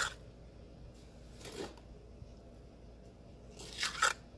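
A trowel scraping and slapping wet mortar onto a concrete slab: two short scrapes, one about a second and a half in and a louder one near the end.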